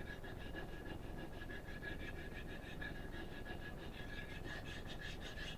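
Kitchen knife blade being stroked rapidly back and forth on a coarse 325-grit DMT diamond sharpening plate: an even, rhythmic gritty scraping with a thin steady ring, the strokes growing stronger near the end.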